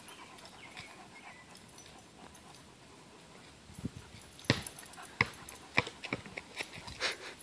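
Dogs play-fighting: quiet at first, then from about four seconds in a quick run of short, sharp yips, about six in three seconds.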